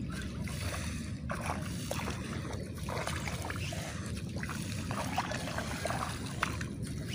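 Feet wading through a flooded rice paddy, with a splash and slosh of water and mud at each step, over a steady low wind rumble on the microphone.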